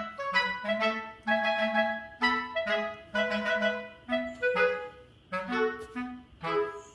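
Background music: a light melody played in short, separate notes.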